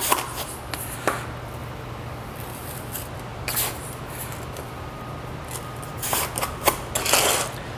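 Granulated submerged arc welding flux poured by hand from a scoop into a groove joint: a dry, gritty rustle of pouring granules in several short spells, with sharper scrapes now and then, over a low steady hum.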